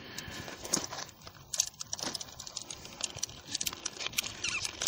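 Folded aluminium tent pole segments clinking and rattling against each other as they are handled, with many small metallic clicks.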